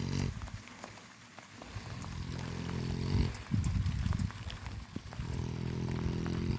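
Kunekune sow snoring in her sleep: a run of low, rasping snores, each a second or two long, coming every couple of seconds.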